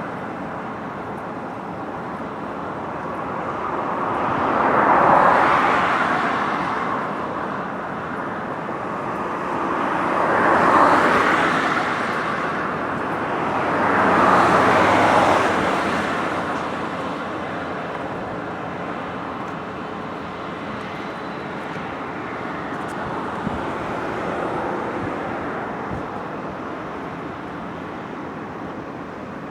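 Road traffic passing close by: three vehicles go past one after another in the first half, each swelling and fading, over a steady hum of more distant traffic.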